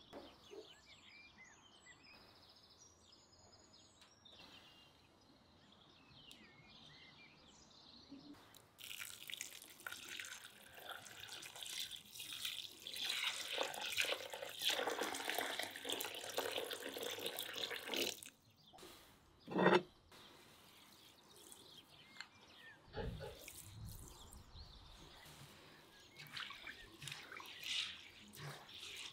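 Water pouring in a steady stream into a metal bowl of rice for about nine seconds. After a single knock, hands slosh and rub the rice in the water as it is washed. Birds chirp faintly in the first few seconds.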